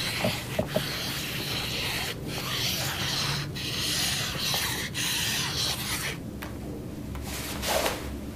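Paint marker rubbing across black fabric in a run of drawing strokes, each a scratchy rub with short breaks between them.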